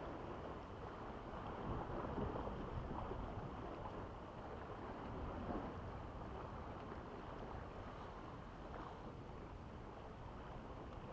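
Steady rushing wash of wind on the microphone and small waves at a rocky sea shore, rising and falling a little.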